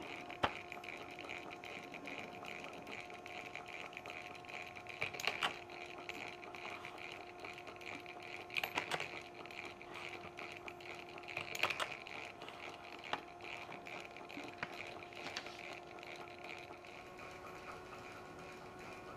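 Model eccentric punch press running, belt-driven by a small model electric motor: a steady motor hum with the press's light, rapid mechanical clatter. Three louder bursts of clicking come about 5, 9 and 12 seconds in as the punch cuts through paper.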